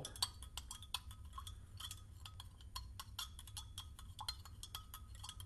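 A thin stirrer swirled by hand in a glass beaker of sodium citrate solution to dissolve the salt: rapid, irregular clinks against the glass, many with a short ring.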